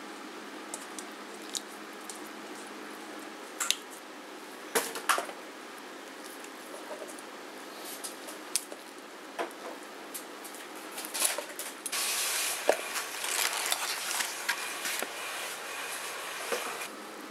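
Soaked dried shiitake mushrooms squeezed and sloshed by hand in a stainless-steel bowl of water, then sliced with a knife on a plastic cutting board in a series of sharp taps. About three-quarters of the way through comes several seconds of louder hissing, splashy noise, all over a steady low hum.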